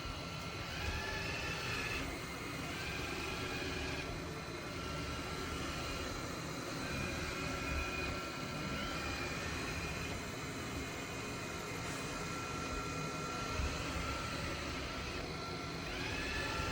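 eufy X10 Pro Omni robot vacuum running: a steady whir with a high whine that rises and falls in short arcs every couple of seconds.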